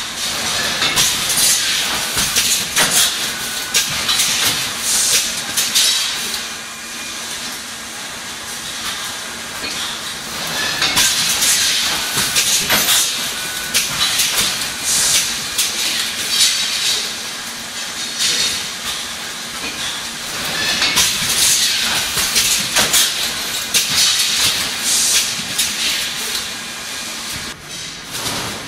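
Packaging line with an HM 4000S servo cross-web labeller running: a continuous hissing clatter of quick clicks over a low steady hum. It grows louder and eases off in cycles about every ten seconds.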